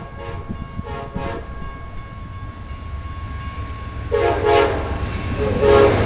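Amtrak GE P42DC diesel locomotive's air horn sounding a series of chords: a short blast about a second in, then two louder blasts near the end. A low rumble from the approaching train builds throughout.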